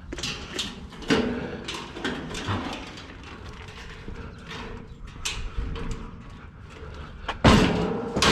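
Scattered knocks and clicks of discarded items being handled and shifted, with a louder clatter about seven and a half seconds in.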